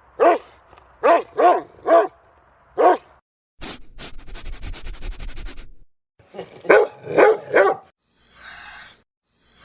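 Dog barking: a run of about five sharp barks in the first three seconds, a rough noisy stretch of about two seconds, then a quick burst of four more barks around seven seconds in.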